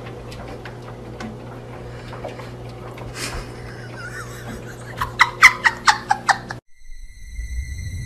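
Steady low hum with a few faint clicks, then a quick run of about seven sharp bursts of laughter near the end. After a sudden break, eerie music with a rising low rumble begins.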